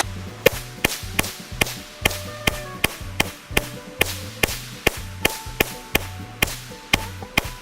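Background music with a steady percussive beat: sharp clicks about two and a half times a second over a bass line and held tones.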